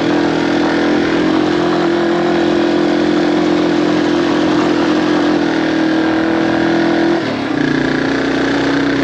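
Yamaha TW200's single-cylinder four-stroke engine pulling steadily up a dirt climb. About seven seconds in, the revs drop suddenly and it settles at a lower note.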